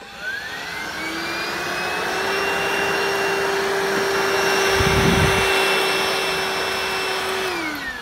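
VAX SlimVac 22.2 V cordless stick vacuum motor spinning up with a rising whine, then running steadily with a high whine and airflow hiss. It winds down near the end. A brief low thump comes about five seconds in.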